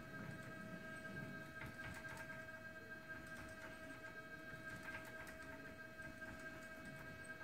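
Faint steady electric whine from the lab-scale overhead crane's motor drives, with a few light ticks.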